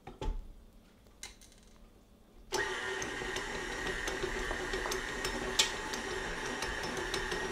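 Electric stand mixer switched on about two and a half seconds in, its motor running steadily as the dough hook kneads fresh pasta dough, with occasional light clicks. A couple of light knocks come before it starts.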